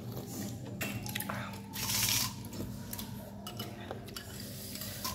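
A person eating rice porridge from a spoon: a loud slurp about two seconds in, then chewing, with a few light clinks of a metal spoon against a ceramic bowl.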